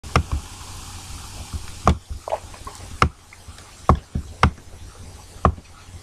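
Computer mouse clicking: sharp, irregular clicks, some in quick pairs, as forecast-map frames are stepped through, over a faint low hum.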